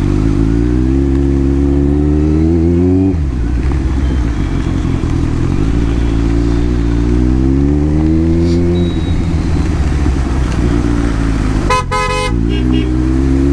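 Kawasaki Z900 inline-four engine accelerating, its pitch rising, dropping sharply at an upshift about three seconds in, then rising again and settling to a steady run. A vehicle horn honks briefly near the end.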